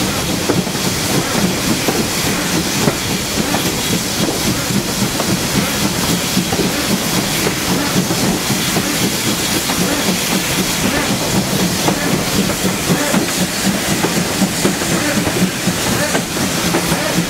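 Steam locomotive 5643, a GWR 5600-class 0-6-2 tank engine, running with its train, heard from the first carriage window just behind it: a steady noise of wheels and running gear with clicking over the rail joints and a hiss of steam.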